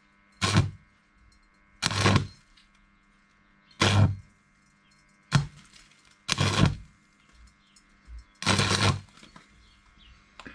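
Electric welding on the steel shell of an M42 helmet: six short crackling bursts, about every one and a half to two seconds, over a faint steady hum, as the hole in the top of the helmet is tacked shut.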